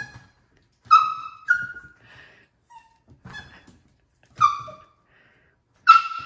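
Miniature poodle puppy giving short, high-pitched squeaks, about six of them spread irregularly, as it pounces on an inflatable stability cushion, with soft thumps under some of them.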